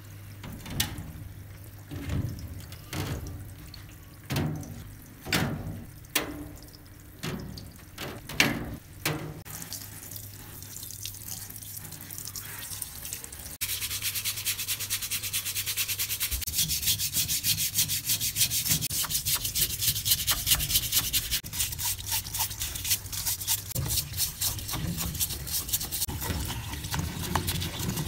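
A stiff bristle brush scrubbing a wet, rusty meat grinder and its cutting plate in rapid back-and-forth strokes, starting about halfway. Before that come scattered knocks of the metal parts being handled on a metal grate, with a low steady hum underneath.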